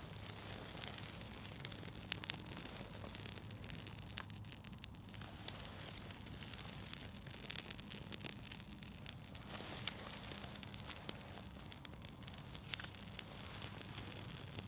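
Small birch-bark tinder fire burning with faint, scattered crackles and pops, while thin strips of birch bark rustle as they are laid onto the flame.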